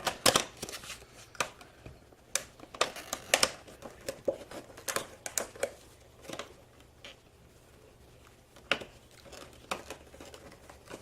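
Funko Pop box packaging being handled and opened to get the vinyl figure out: irregular crinkling, tearing and rustling, busiest in the first half, with a lull before a few more crackles near the end.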